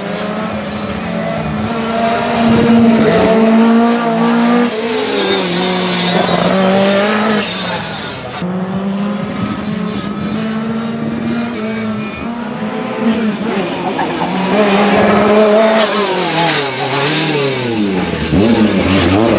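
Lancia Rally 037's supercharged four-cylinder engine revving hard under load, holding pitch for a few seconds at a time and dropping at each gear change, with a sharp dip and climb in pitch near the end.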